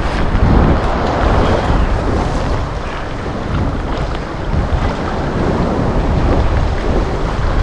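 Strong wind blowing across the microphone, over the steady wash of choppy, wind-blown bay water.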